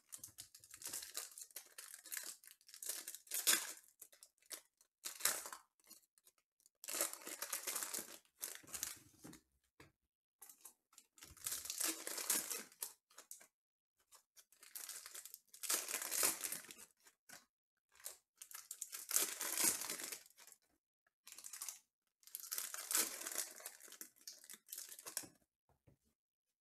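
Foil trading-card pack wrappers being torn open and crinkled, one pack after another, in repeated rustling bursts every few seconds.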